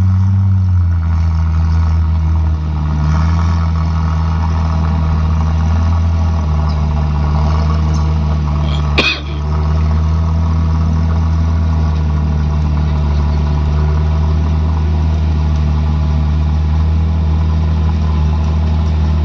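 Truck engine running steadily with an even low drone; its pitch dips slightly about a second in. A single sharp click sounds about nine seconds in.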